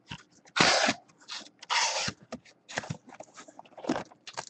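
Cardboard boxes and packaging being handled: a few short scraping, rustling rasps, the loudest about half a second and two seconds in.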